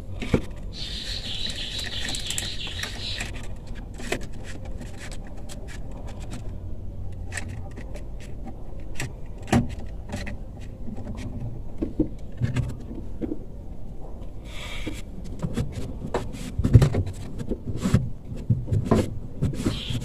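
Hands handling a twin-tub washing machine's rubber drain-valve plug and spring and wiping them with a cloth: scattered clicks, scrapes and rubbing, with a short hiss in the first few seconds and heavier knocks against the plastic drain fittings near the end.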